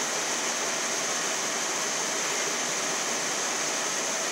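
Steady, even machine noise of a self-service laundromat with its washing machines and tumble dryers running, with no knocks or changes.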